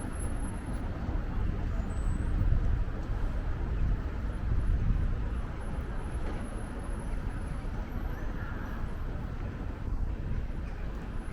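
Wind buffeting the microphone: a low rumble that swells in gusts about two and a half and five seconds in, over outdoor street ambience.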